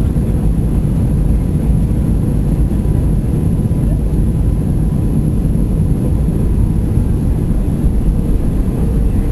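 Airbus A320 cabin noise: a steady, loud low rumble of the jet engines and airflow, with a faint steady hum on top, heard from inside the passenger cabin during the landing.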